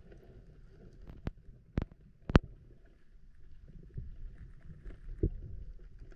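A low, muffled rumble with several sharp knocks: three in quick succession, the last and loudest about two and a half seconds in, then one more near the end.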